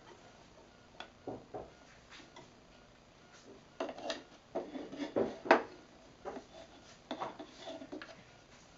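Wooden toy kitchen pieces clacking: a small wooden spoon stirring, tapping and scraping in a wooden toy pot, in irregular clusters of knocks, the loudest a little past the middle.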